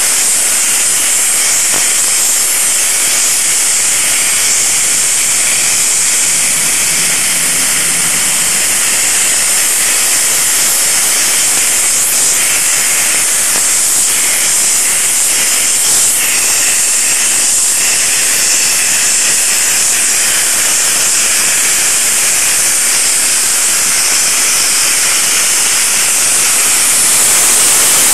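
Steam locomotive 03 1010 (DR class 03.10) standing with steam blowing out low around its cylinders: a loud, steady hiss that grows a little louder near the end.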